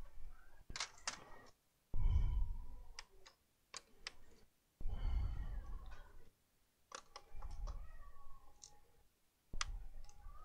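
Clicks and knocks of a laptop's plastic case being handled and shifted on a workbench, in short bursts with dead silence between.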